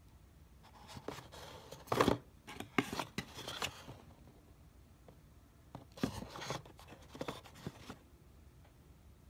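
Hands handling a Netgear AirCard 785S mobile hotspot over its cardboard box: light clicks, taps and rubbing scrapes in two bursts, the first from about a second in lasting roughly three seconds, the second around six to eight seconds in.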